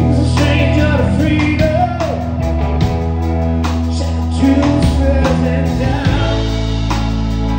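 A rock band playing live: Les Paul-style electric guitar over a drum kit, with a man singing lead.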